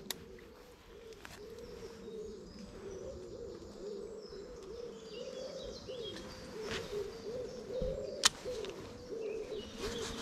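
A pigeon cooing in a long run of low, repeated notes, with faint songbird chirps higher up. A single sharp click about eight seconds in.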